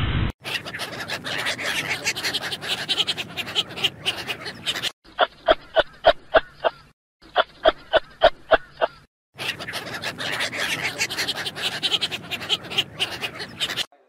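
Sea otters calling: short pitched squeals repeated about three times a second in two runs, with stretches of dense, rapid crackling clicks before and after.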